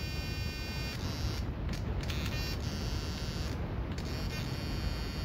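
Steady electric buzz with a low hum and a high whine: the RC car's throttle servo holding the slide carburettor open. The high whine drops out briefly twice, at about one and a half and about three and a half seconds in.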